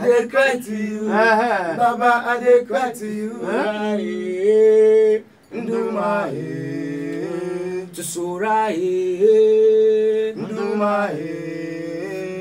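Men singing a slow prayer song, with long held, wavering notes over a steadier lower voice and a brief pause about five seconds in.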